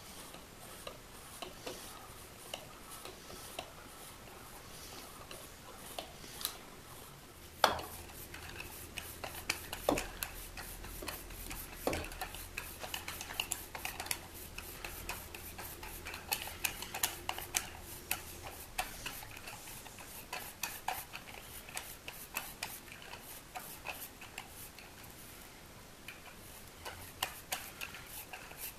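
A 1/8-inch NPT pipe tap turned by hand in a T-handle tap wrench, cutting threads into a wooden handle: irregular small clicks and creaks as the wrench works back and forth, with a few sharper knocks about 8, 10 and 12 seconds in.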